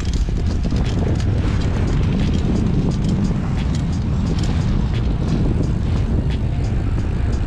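Wind buffeting a moving camera's microphone as it tracks alongside a bike, with rolling noise from bicycle tyres on asphalt: a steady low rumble with scattered clicks.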